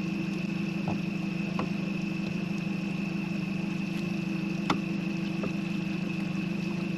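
Boat motor idling steadily, with a few light clicks and knocks over it, the sharpest nearly five seconds in.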